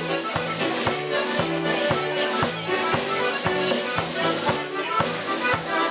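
Irish traditional dance tune played on a button accordion, with a drum kit keeping a steady beat under it.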